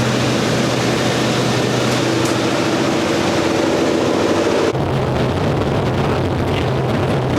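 Antonov An-2's nine-cylinder radial engine droning steadily, heard inside the cabin in cruise flight with loud airframe and air noise. About two-thirds of the way through the sound abruptly turns duller, with less hiss and a stronger low hum.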